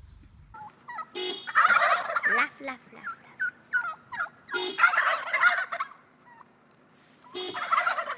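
Wild turkeys gobbling: three gobbles, each about a second long and a few seconds apart, with short single calls in between.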